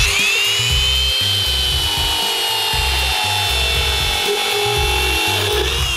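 Rotorazer compact circular saw running as it cuts through a wooden board, a steady high whine that sags slightly under load and starts to wind down at the very end. Background music with a steady beat plays underneath.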